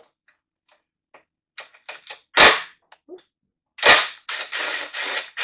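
Metal hand tools clicking and clacking while a hex driver with a wobble extension is set to work on a motorcycle cover's screws. Small scattered clicks, two loud sharp knocks about two and a half and four seconds in, then a quick run of clacks near the end.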